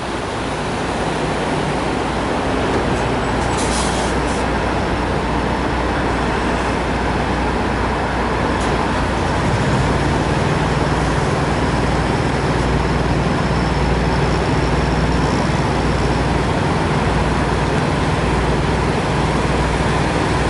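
Steady diesel drone of semi trucks running in a truck stop lot, with a deeper engine tone setting in about ten seconds in as a tractor-trailer manoeuvres across the lot. A short hiss comes about three and a half seconds in.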